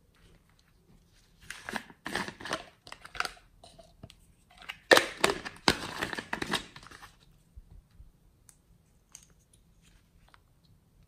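Small hard plastic pieces and caps being handled and pulled apart, giving crackling, scraping rustles in two bursts of a second or two each, the second louder.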